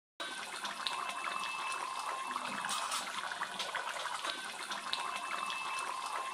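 Thick fish curry boiling in a wide aluminium pan: a steady bubbling and popping, with a faint steady high tone alongside.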